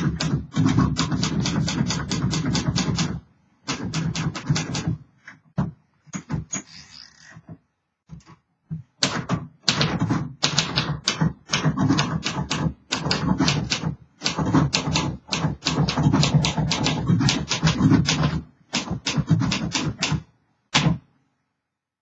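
1949 Royal Arrow manual portable typewriter being typed on: quick runs of sharp key strikes with short pauses between them, thinning out for a few seconds in the middle, and stopping about a second before the end.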